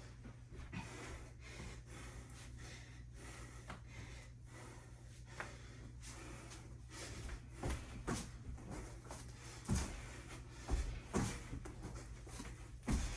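A woman breathing hard while doing burpees, quick loud breaths in and out. In the second half come several dull thumps, about six, from her body landing on the floor.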